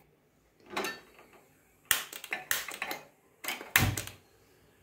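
Hand-held stainless steel spark gas lighter clicking several times in quick succession at a gas stove burner. A louder burst follows about three and a half seconds in, as the burner lights.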